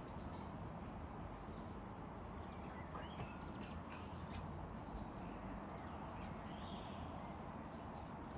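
Scattered short, high bird chirps, a few every second or so, over a steady low background rumble.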